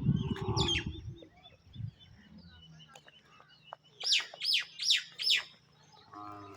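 A bird calling four times in quick succession past the middle, each note a fast downward-sliding whistle. A low rumble fills the first second.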